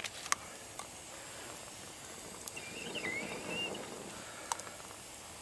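Wood campfire of split logs crackling, with a few sharp pops scattered through, and a log knocking into place at the start. A short wavering high chirp comes in about three seconds in.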